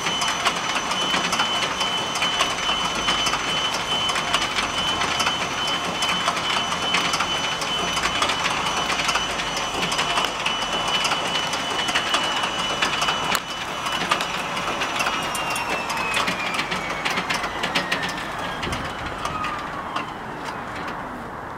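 Ilyushin Il-14T's Shvetsov ASh-82T radial engine being cold-cranked by its starter with no ignition, the propeller turning over: a steady high starter whine over a dense clatter of mechanical clicks. About two-thirds of the way in the whine slides down in pitch and fades as the cranking winds down.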